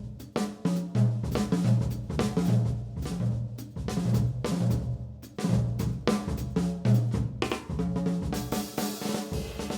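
Instrumental break in a song: a drum kit plays a snare and bass drum groove over a bass line, and cymbals wash in about eight seconds in.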